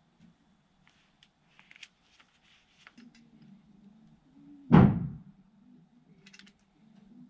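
A single loud thunk of a knock against a hard surface about two-thirds of the way in, dying away within half a second, with faint light clicks and taps of handwork before it.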